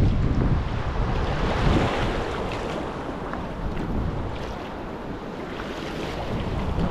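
Wind buffeting the microphone over choppy water, with the rumble easing in the middle and picking up again near the end. Waves slap and a wooden kayak paddle splashes through the water on each stroke.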